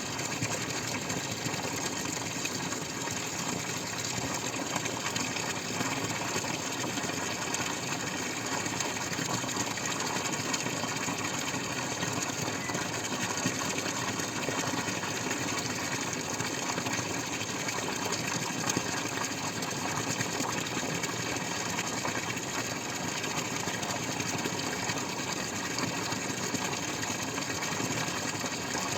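Water splashing and dripping steadily, a dense patter of many drops with no pauses.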